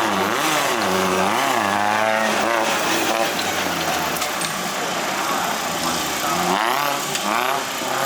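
Off-road 4x4 engine revving up and down repeatedly, its pitch rising and falling every second or so, most busily at the start and again near the end.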